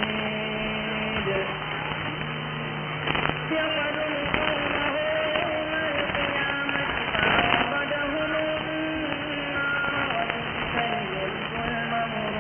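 Weak, distant mediumwave AM broadcast from Radio Gotel, Yola, on 917 kHz, received on a software-defined radio. Faint voice and music are buried in hiss, with several steady whistling tones and bursts of static crackle, the loudest about seven seconds in. The sound is muffled and narrow, as from an AM receiver's filter.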